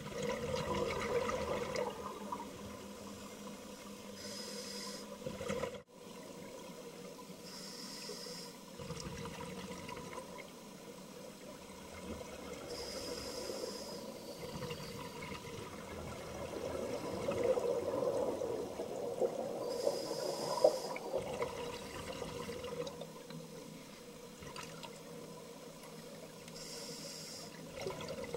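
Scuba regulator breathing heard underwater: a short hiss on each inhalation, about five in all, alternating with longer bubbling rushes of exhaled air. A steady faint hum runs underneath, and the sound briefly drops out about 6 s in.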